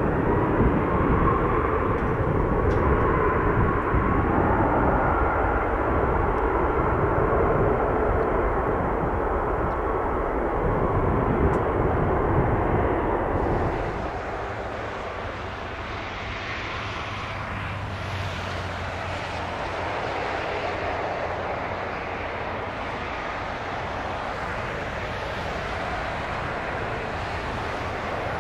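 Airbus A380's four jet engines heard from the ground, loud and steady. About halfway through, the sound drops suddenly to a quieter level.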